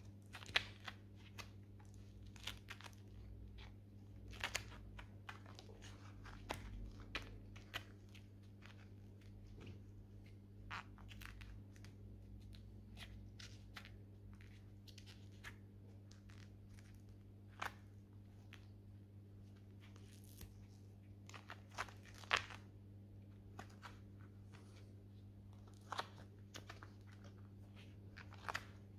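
Faint handling noise: scattered irregular clicks and crackles from gloved hands working close to the microphone, over a steady low hum.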